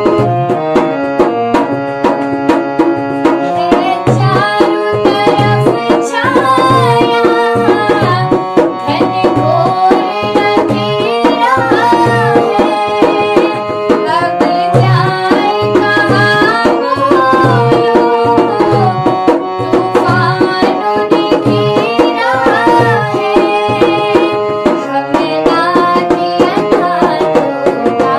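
Hindi devotional bhajan music: a steady tabla rhythm under a gliding melody, the melody growing fuller about four seconds in.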